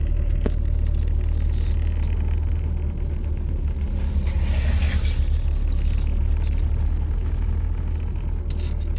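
Car's engine and road noise heard from inside the cabin while driving: a steady low rumble, with a brief click about half a second in and a hiss swelling around the middle.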